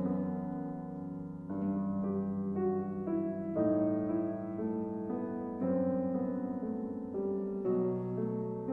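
Chamber music for woodwind trio (flute, clarinet, bassoon), harp and piano, played live: sustained chords, with a new chord entering about every two seconds.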